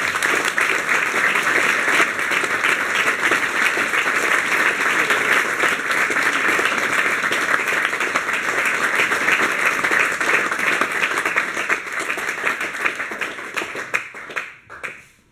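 Audience applauding steadily, thinning out and stopping near the end.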